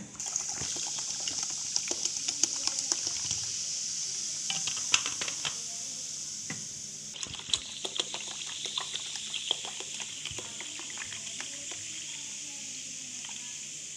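Soda water poured from a plastic bottle into a steel pot of lemon and mint juice, fizzing with a steady hiss and many small crackles of bursting bubbles.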